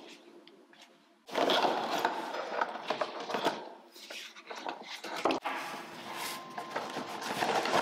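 Packaging rustling, with small clicks and knocks, as a wooden table-lamp base and its cord are unpacked from a cardboard box and handled. It starts abruptly about a second in.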